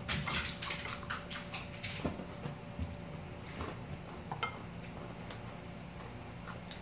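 Close-miked eating sounds: chewing and mouth clicks, with chopsticks and a spoon tapping and scraping against a glass bowl and a ceramic plate. The taps are densest in the first second, over a faint steady hum.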